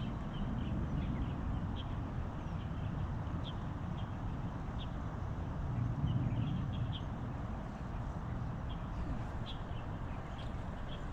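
Outdoor ambience: a steady low rumble with scattered short, faint high chirps of small birds.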